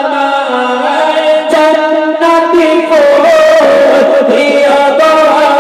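Two men singing a Bengali Islamic gojol into microphones, with long held melodic vocal lines.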